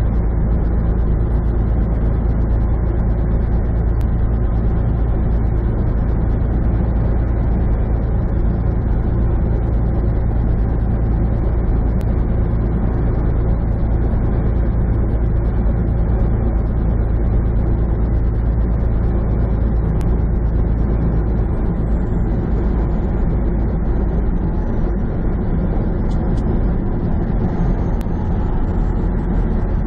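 Steady low drone of a semi truck's engine and road noise, heard inside the cab while driving at highway speed.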